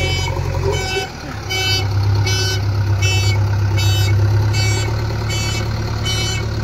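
JCB 3DX Eco Excellence backhoe loader's diesel engine running under load, dipping briefly about a second in and then revving up again, with the machine's reversing alarm beeping steadily about every three-quarters of a second.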